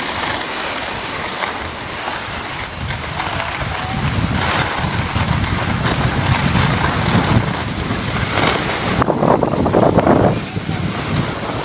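Wind buffeting the microphone of a camera carried while skiing, over the hiss and scrape of skis sliding on snow, growing heavier about four seconds in, with a louder scrape about nine to ten seconds in.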